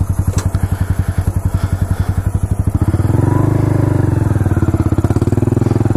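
Honda Grom's small single-cylinder engine chugging at low revs with evenly spaced firing pulses, then revving up about halfway through as the bike pulls away, running louder and steadier to the end.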